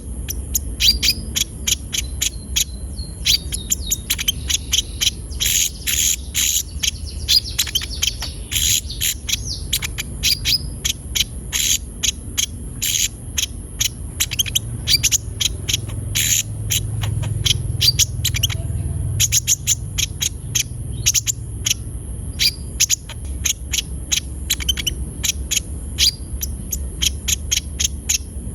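Sunbird (konin, kolibri ninja) singing energetically: a fast, unbroken string of short, sharp, high chirps and trills, several a second.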